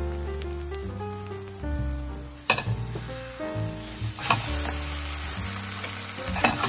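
Green onion pancake (pajeon) sizzling in oil in a frying pan, the sizzle getting louder after it is flipped about four seconds in, with a few sharp knocks along the way. Light background music plays underneath.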